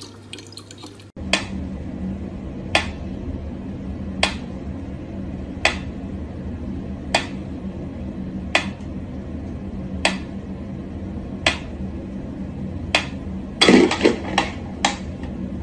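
Mechanical pendulum metronome ticking slowly, one sharp tick about every second and a half, over a steady low hum. It opens with a second of faint running tap water, and near the end comes a quick cluster of louder clicks and knocks.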